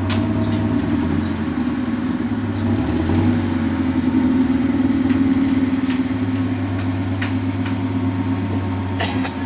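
Car engine running at a steady low idle as the car creeps slowly forward, growing a little louder about three seconds in, with a few faint clicks.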